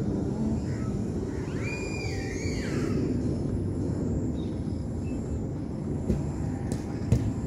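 Steady low outdoor rumble, with a brief high whistled call about two seconds in that rises and falls. Two sharp thuds near the end sound like a football being kicked.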